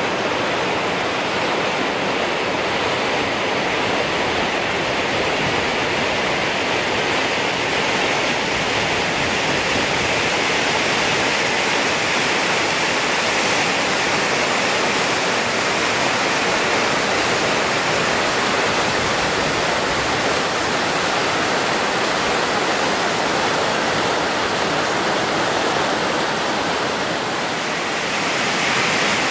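Whitewater rapids pouring through rock chutes: a loud, steady rushing of water.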